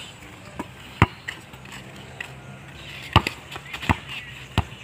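Basketball being dribbled on a packed dirt court: a handful of sharp thuds at uneven intervals, the loudest about a second in and again past three seconds.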